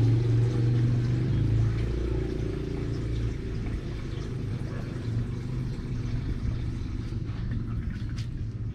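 An engine's low, steady hum, loudest at the start and fading over the first three seconds.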